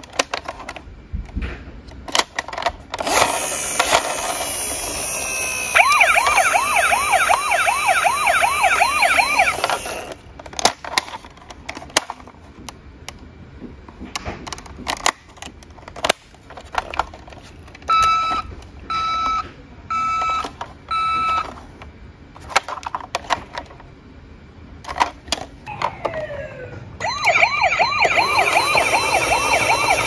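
Toy ambulance's electronic siren sound effect: a wail about three seconds in that turns into a fast warbling yelp and cuts off around ten seconds, coming back near the end. In between come sharp clicks of its plastic doors being opened and shut and four short beeps.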